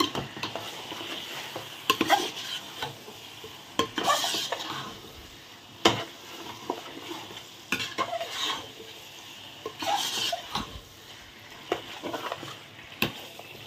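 A steel spoon stirring chicken in thick masala in a metal pot, the spoon knocking and scraping against the pot every couple of seconds, over a faint steady sizzle of the cooking masala.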